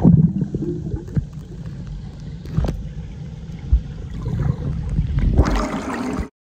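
Swimming-pool water heard through a camera microphone plunged underwater: a splash as it goes in, then muffled low sloshing and bubbling with a few knocks. Near the end the camera breaks the surface and clear splashing comes through, then the sound cuts off abruptly just before the end.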